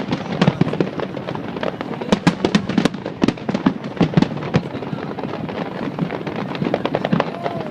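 Fireworks display going off in rapid succession: a dense run of sharp cracks and booms, several a second.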